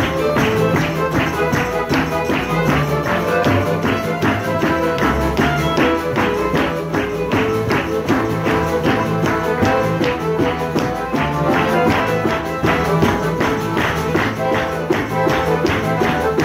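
Live acoustic folk band playing an instrumental passage: violin, double bass and accordion over a steady, fast tambourine beat.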